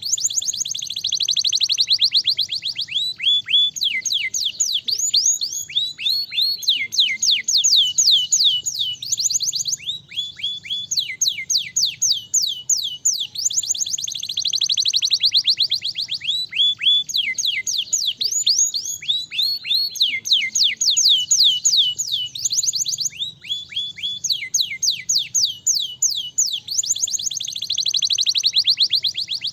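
Domestic canary singing a continuous song of fast trills and rolls: runs of rapid repeated notes, many falling in pitch, with the pattern switching every second or two.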